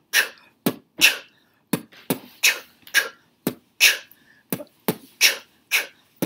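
A woman beatboxing a steady beat of short mouth-made kick and snare sounds, about two hits a second.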